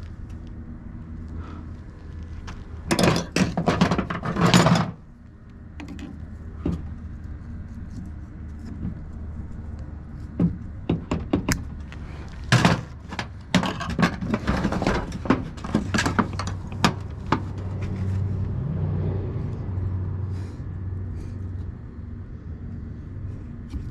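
Metal clanks, knocks and rattles of tools and parts on a Copeland semi-hermetic compressor being taken apart by hand, coming in clusters, over a steady low hum.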